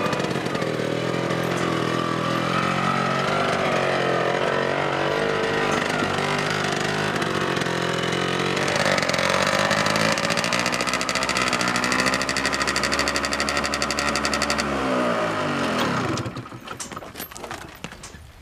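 Small utility truck's engine running, its pitch rising and falling with the throttle, then switched off about 15 seconds in, winding down and stopping.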